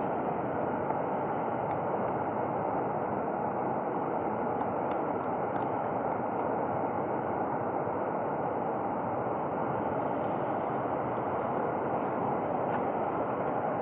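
Steady rushing noise that never rises or falls, with faint scattered small clicks from sisi shells being picked off the rock by hand.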